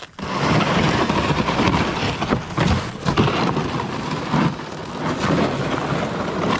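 Plastic snowmobile sled dragged over ice and wet snow: a loud, continuous scraping and crunching that starts abruptly.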